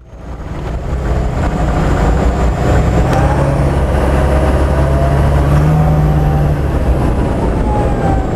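Humvee with a Duramax turbo-diesel conversion driving, heard from inside the cab: engine and road noise build over the first second, then hold steady. A fainter whine rises slowly in pitch through the middle.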